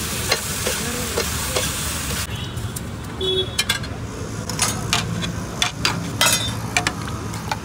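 Mutton curry sizzling on a hot flat dosa griddle while a metal spatula strikes and scrapes through it, for about two seconds. The sizzle then stops abruptly and steel plates and cups clink against each other several times.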